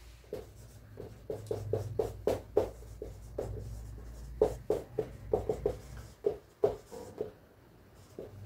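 Marker pen writing on a whiteboard, many short strokes in quick succession, over a steady low hum.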